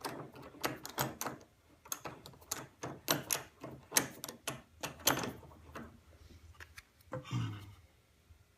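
Irregular clicks and light knocks as bench clamp hardware is opened and fitted against a piece of wood on a workbench.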